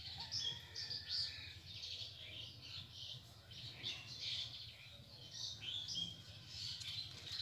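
Small birds chirping, many short high calls following one another in a quick, busy mix.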